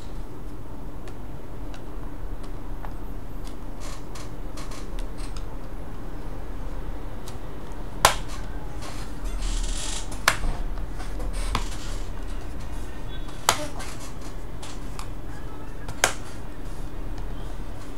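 Five sharp clicks of small hard parts being handled, spaced a few seconds apart over a steady low hum, with a brief hiss between the second and third.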